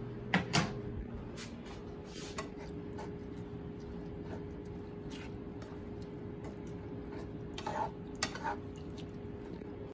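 Wooden spoon stirring ground beef, green peppers and onions in a nonstick skillet, with a couple of sharp knocks near the start and a few more clicks near the end, over a steady low hum.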